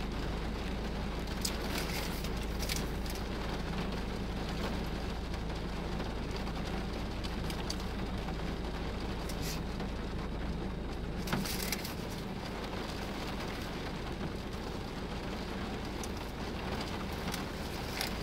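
Rain falling on a car, heard from inside the cabin, over a steady low hum from the car, with a few short crackles now and then.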